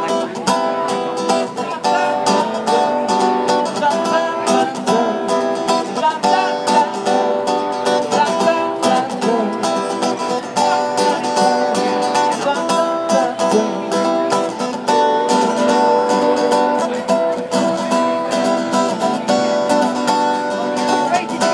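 Acoustic guitar being strummed: a live instrumental passage with held chords and no singing.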